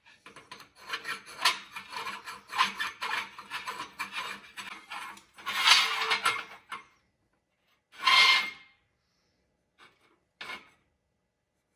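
Scratchy rubbing and scraping of a stainless steel exhaust canister inlet being turned against a marker on a steel workbench as its trim line is marked, in a run of quick strokes for about seven seconds, then a few short scrapes near the end.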